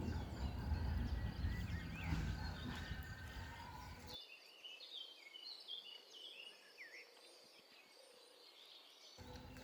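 Outdoor ambience of scattered high chirps and short calls from birds or insects over a low rumble, which cuts out abruptly about four seconds in.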